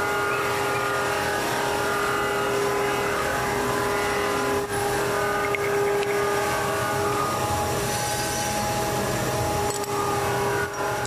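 Metal lathe running, a steady machine whine of several held tones over an even noise, with a brief dip about halfway through and another near the end.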